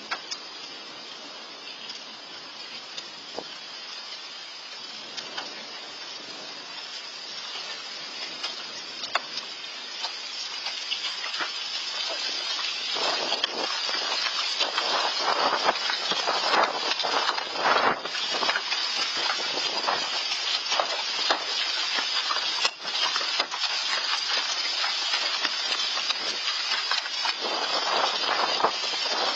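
Hailstorm heard through a Nest security camera's microphone: a steady rush of falling hail and rain with many sharp hailstone clicks and impacts. It grows markedly louder and denser about ten to thirteen seconds in.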